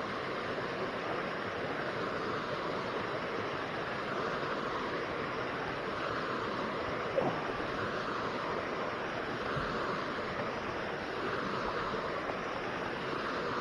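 Steady rushing of water, an even hiss, with a single light knock about seven seconds in.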